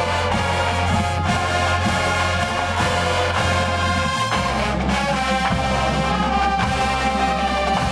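Marching band brass section playing loud, sustained music, with the low brass bass line stepping down to a lower note about four seconds in.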